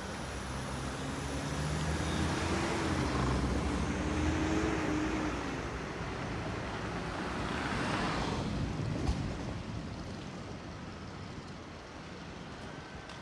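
Street traffic: a motor vehicle's engine note rises and falls over the first five seconds, then another vehicle swells past about eight seconds in and fades.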